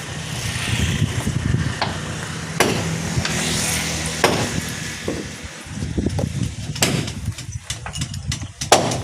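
Hammer blows on timber of a wooden fishing boat under construction: a handful of sharp knocks, irregularly spaced a second or more apart, over a steady low rumble.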